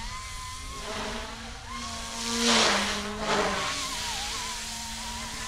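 Goosky E2 200-size electric RC scale helicopter in flight: a steady whine of its motor and rotors. About halfway through it swells into a loud rushing whoosh as it passes close, and its pitch dips slightly afterward.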